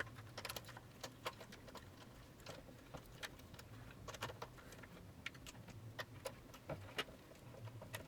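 Faint, irregular light clicks and ticks of a skate T-tool's Phillips bit working longboard truck mounting screws tight, a few clicks a second.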